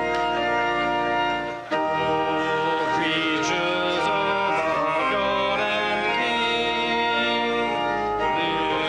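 Organ playing sustained hymn chords, with voices singing along from about three seconds in. The sound dips briefly and the chord changes sharply shortly before two seconds in.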